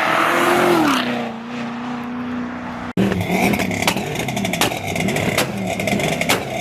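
A sports car leaving the show, its engine note falling in pitch as it comes off the throttle, then holding a steady drone. After a sudden break about three seconds in, another car's engine runs with a wavering note and a string of sharp crackles and pops.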